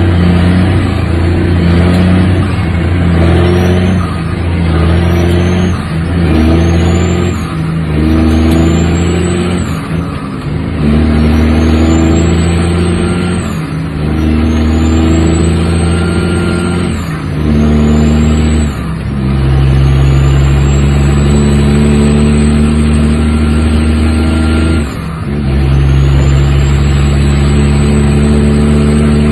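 Heavy diesel truck engine pulling hard through about ten upshifts of a manual truck transmission, heard from inside the cab. Each shift is a brief dip in the engine note, and a turbo whistle climbs in each gear and drops at every shift. The shifts come further apart as the truck gains speed.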